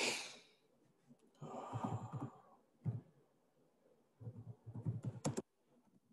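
A person breathing and sighing close to the microphone in a few separate breaths, the first fading out just after the start and the last ending about five seconds in.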